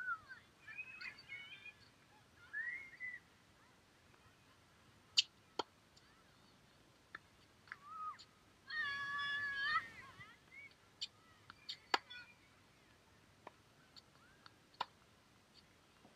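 Tennis rally on an outdoor hard court: sharp pops of the ball off rackets and the court every second or two. Short high squeaks and chirps come in between, the loudest a squeal lasting about a second midway.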